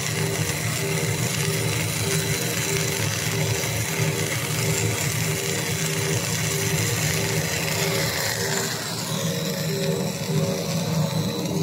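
Twin-screw corn-puff extruder line running with a steady mechanical hum and hiss, and a tone pulsing on and off about twice a second.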